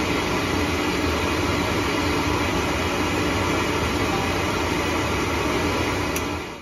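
Oil burner on a boiler running: a steady rushing noise from the burner's blower with a low hum underneath.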